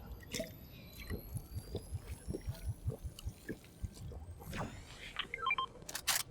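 Video game sound effects: a run of quick, soft low thumps, scattered clicks, faint gliding high tones, and a short series of beeps near the end.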